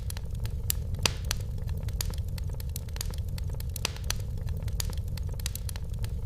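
Wood fire crackling in a fireplace: irregular sharp pops and snaps over a steady low rumble, with one louder pop about a second in.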